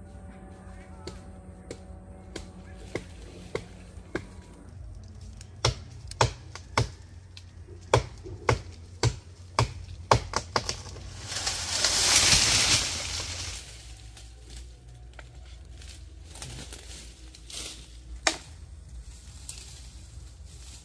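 A string of sharp, separate knocks, up to about two a second at their busiest. About halfway through comes a louder hissing rush lasting a couple of seconds, followed by a few more knocks.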